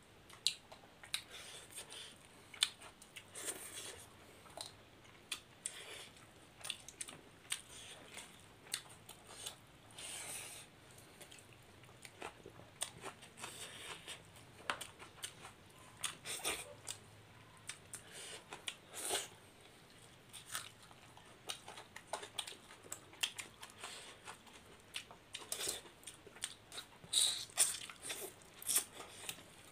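Close-up eating sounds of two people eating fish curry and rice with their hands: irregular chewing and crunching, with many short sharp clicks throughout.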